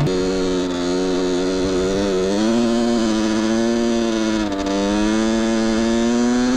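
Small 50 cc two-stroke motorcycle engine, a Minarelli AM6, running steadily under way at high revs. Its pitch rises a little about two seconds in, dips briefly past four seconds, then climbs again before falling off at the very end.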